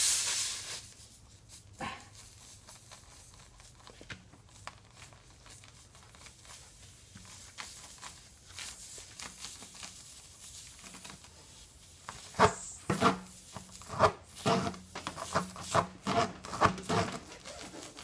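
Tire-repair reamer pushed and pulled through the puncture in a tubeless car tire's tread: faint rubbing at first, then, about two-thirds of the way through, a run of loud squeaky rasps, roughly two a second. It opens with a loud hiss of air from the puncture that dies away within the first second.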